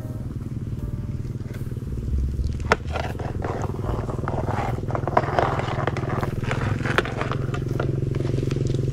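A steady low motor drone, with dry leaf litter crackling and a few sharp clicks from metal tongs working among the leaves.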